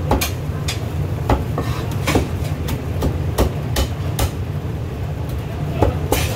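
Chinese cleaver chopping roast goose on a thick round wooden chopping block: about ten sharp, irregular chops with a short pause near the end, over a steady low hum.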